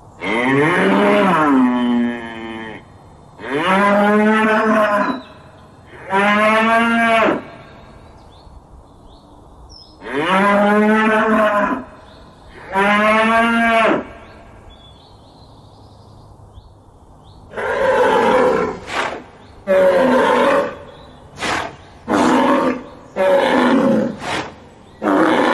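A bull mooing: five long bellows, each rising then falling in pitch, then, from about two-thirds of the way in, a quick series of shorter, rougher calls.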